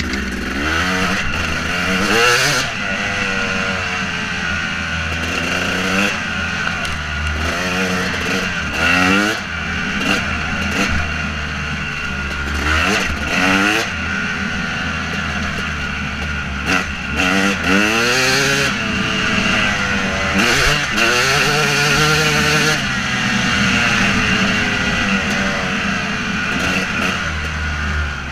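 2014 KTM 250 SX two-stroke single-cylinder dirt bike engine under way on a trail, revving up and dropping back again and again as the throttle is worked and gears are changed, its pitch climbing and falling with each burst.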